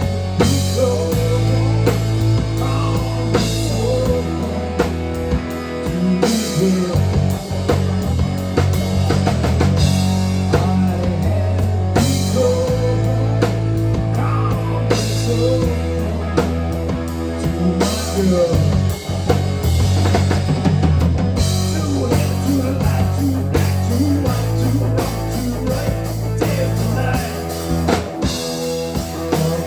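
Live rock band playing an instrumental passage: electric guitars over a drum kit, with a bending guitar lead line over held bass notes.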